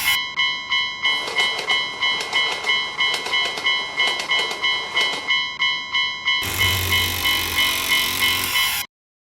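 Railroad crossing warning bell ringing fast, about three dings a second. A train rushes past with clattering from about one second to five seconds in. Music comes back in near the end, and the sound cuts off suddenly just before the end.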